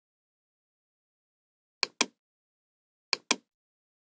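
Two computer mouse clicks about a second and a half apart, each a sharp press-and-release pair of clicks.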